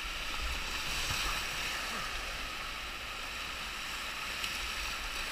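Whitewater rapids rushing and churning around a canoe running through them: a steady, even hiss of fast water.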